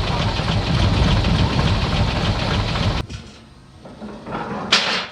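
Heavy diesel machinery running loud with a rhythmic clatter, cutting off abruptly about three seconds in; a short, loud hissing whoosh comes near the end.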